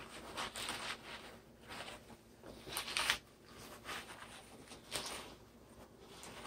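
Chopped romaine lettuce leaves and a paper towel being pressed and turned over by hand to blot the washed lettuce dry: soft, irregular rustling and crinkling, loudest about three seconds in.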